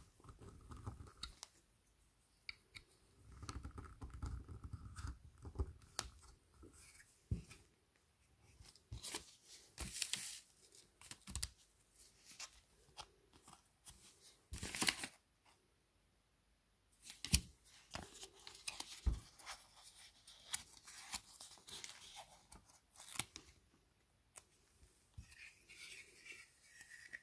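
Small Playmobil plastic toy pieces being handled: scattered clicks and taps of plastic on plastic, with short tearing rustles of a sticker being peeled from its backing sheet.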